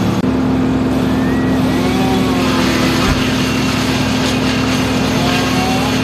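An engine running steadily at one constant pitch, with no revving.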